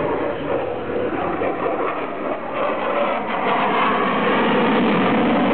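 Jet noise from a MiG-29's two Klimov RD-33 turbofans running with afterburners lit, a steady noise that grows louder about three and a half seconds in and then holds.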